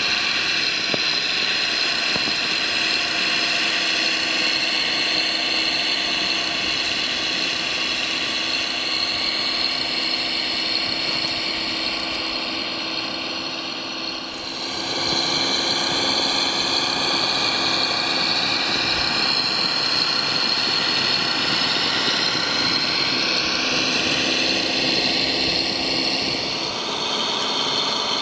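Radio-controlled model Claas Xereon 5000 tractor driving through snow: a steady whine of its drive motor and gearing, made of several tones that slide up and down as it changes speed. The sound dips briefly about halfway through.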